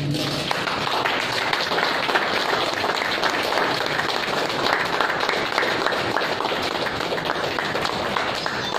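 A group of people applauding, a dense, even patter of hand claps.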